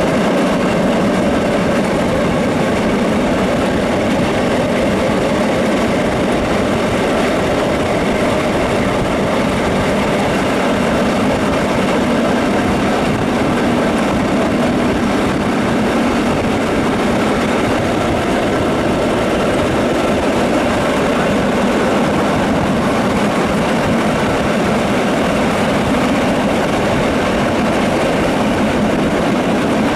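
Steam-hauled train, the former Deutsche Reichsbahn class 50 locomotive 50 3673 with its coaches, running at speed, heard through an open carriage window: a loud, steady rumble of wheels on the rails.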